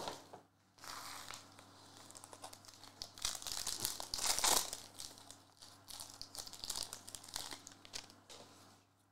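Foil wrapper of a Panini Prizm Premier League trading-card pack crinkling in the hands and being ripped open, the tearing loudest about three to five seconds in.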